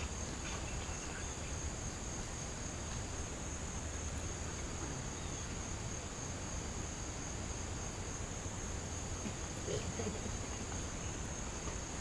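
Steady high-pitched chorus of insects such as crickets, over a low rumble.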